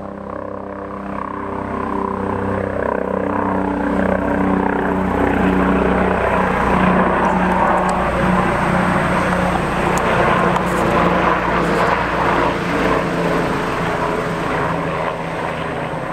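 Light single-engine turbine helicopter flying overhead. Its rotor beat and engine grow louder to a peak through the middle, then ease off a little near the end.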